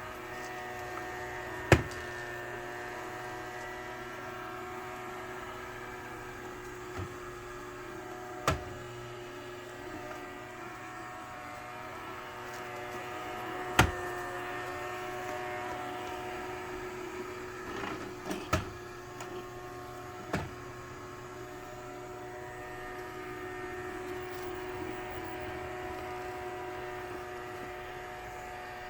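Sterilizing robot vacuum cleaner running with a steady motor hum that holds several fixed tones. About five sharp knocks are spread through it.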